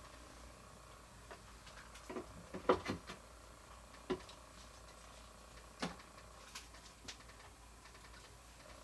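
A few light clicks and knocks from figure-statue parts being handled and fitted together, a small cluster about two to three seconds in and then single taps spaced a second or so apart.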